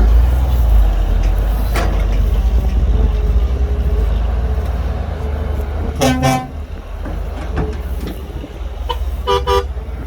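Heavy diesel engine running with a deep steady rumble. A horn sounds once about six seconds in, then two short toots near the end.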